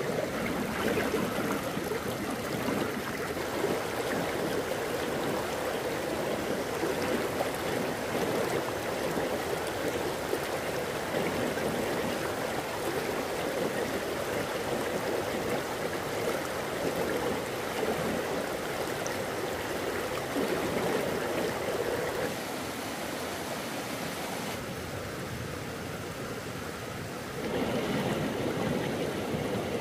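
Steady rush of flowing stream water, swollen with floodwater. It turns quieter for about five seconds near the end, then comes back as before.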